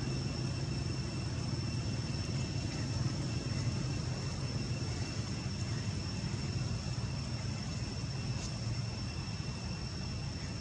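Steady outdoor background noise: an even low rumble with a thin, steady high-pitched whine over it.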